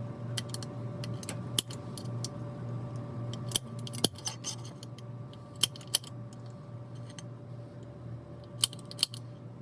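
Center punch marking hole positions on a quarter-inch aluminum strap: sharp metallic clicks at irregular intervals, some in quick pairs, over a steady low hum.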